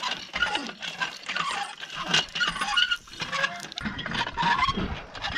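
Campground hand water pump being worked: repeated squeaks and clanks from the pump handle, with water pattering out.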